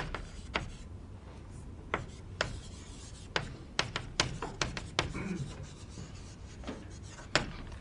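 Writing on a classroom board: a run of irregular sharp taps with faint scraping between them.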